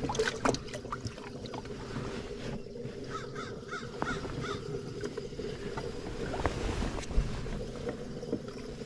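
A bird calls a quick run of about five short notes, over a steady low hum and a few light clicks and knocks.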